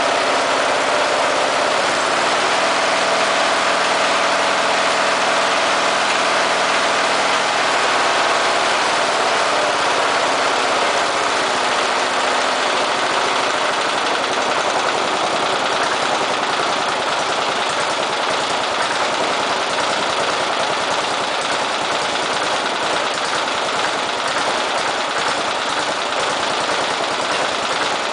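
12 HP Briggs and Stratton lawn mower engine idling. It runs on a rich mixture at first, then, as the mixture is leaned out, its steady hum turns rougher about eleven seconds in, the sound of this engine's dislike of running lean.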